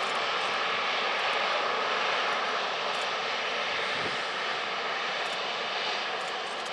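An Airbus A380-841's four Rolls-Royce Trent 970 turbofans run at taxi power as the airliner turns slowly on the runway at close range. It is a steady jet rush with a whine in the middle pitches, easing slightly in the second half.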